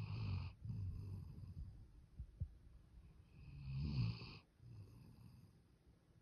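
Sleeping puppy snoring: two slow breaths about three seconds apart, each a snore followed by a softer one.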